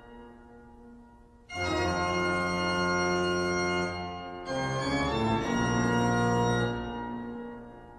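Organ music: long held chords, the first coming in about a second and a half in and the second about halfway through, each dying away after it is released.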